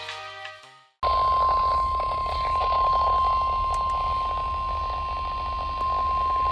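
NOAA Weather Radio warning alarm tone, the 1050 Hz test signal: a single steady high tone that starts suddenly about a second in and holds, heard through a weather radio receiver over static hiss and a low hum.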